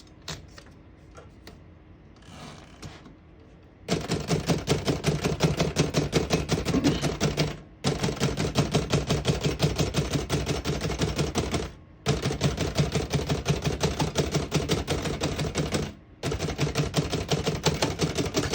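A 1938 Remington Deluxe Noiseless portable typewriter being typed on quickly: about four seconds in, fast keystrokes begin, in four runs of roughly four seconds each with brief pauses between. The Noiseless action gives a dulled keystroke rather than a sharp typebar crack.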